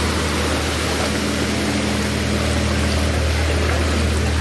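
An engine running steadily, a low even hum under a wash of noise.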